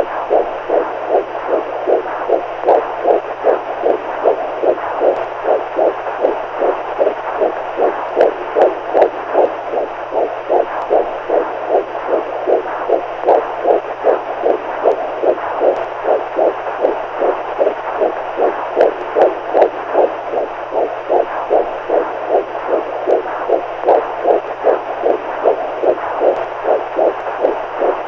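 Heartbeat sounds: a steady, even rhythm of beats that does not change, over a faint low hum.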